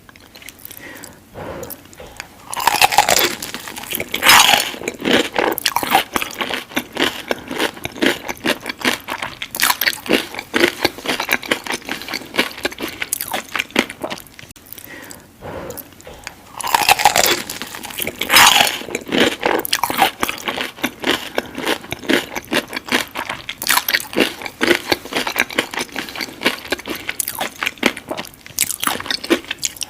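Close-miked ASMR eating: crunchy bites into crispy Jollibee fast food, followed by steady crackly chewing. The loudest bites come in two clusters, a few seconds in and again about halfway.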